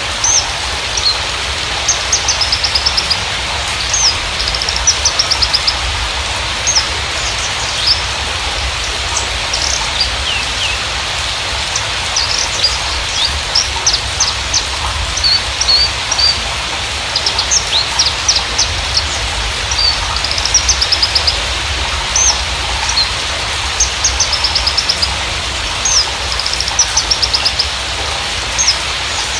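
Javan bushlark (Mirafra javanica parva) singing: bursts of high chirps and quick trilled runs that keep coming with short gaps, over a steady background hiss.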